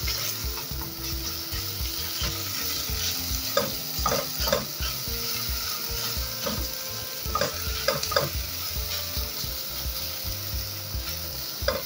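Minced garlic sizzling in a tablespoon of olive oil in a stainless steel pot, stirred with a silicone spatula. There are a few louder strokes of the spatula around four and eight seconds in.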